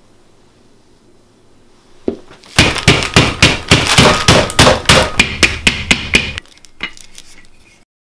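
Wooden rolling pin pounding a plastic-wrapped slab of butter on a table: a quick run of about sixteen loud blows, roughly four a second, that stops suddenly after nearly four seconds. The butter is being beaten flat into a butter block for laminating croissant dough.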